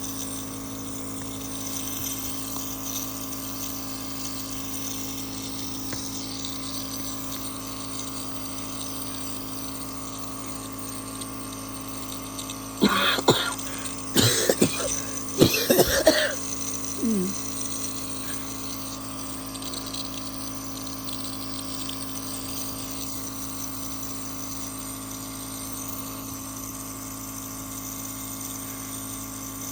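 A person coughing in one fit of several harsh coughs about halfway through, ending in a short falling vocal sound, over a steady background hum.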